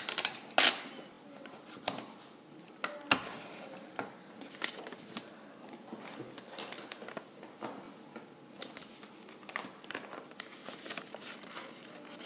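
Paper crinkling and rustling as a folded sheet is handled and pressed, with scattered crackles. The loudest crackles come in the first second.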